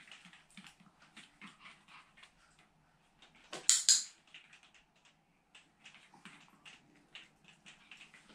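Light ticks and rustles as a small dog carries a tissue to a small plastic cup and handles it. About three and a half seconds in there is one short, loud, hissing burst.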